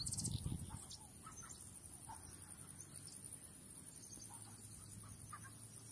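Quiet room tone: a faint low hum and a steady high hiss, with scattered faint short chirps, after a brief soft rustle of the potted plants being handled near the start.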